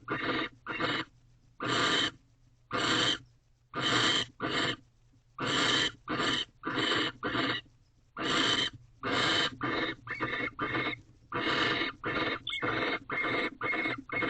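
Barn owl giving harsh, breathy hissing 'snore' calls, about two dozen short rasps in an uneven series with brief pauses. These are the food-begging calls barn owls make during courtship feeding.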